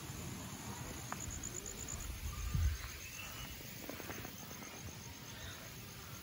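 Insects trilling: a fast, evenly pulsing high chirp that fades about two seconds in, over a low rumble of wind or handling noise, with a single bump a little past halfway.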